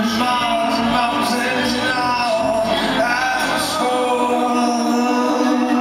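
Live song performed with singing over an acoustic guitar, ending in a long held note in the last two seconds.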